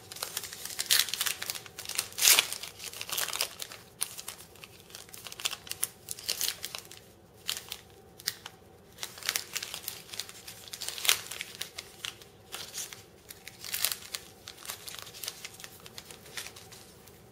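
Plastic wrapper of a 2008 Press Pass basketball card pack being crinkled and torn open by hand, in irregular crackles with a few sharper, louder rips.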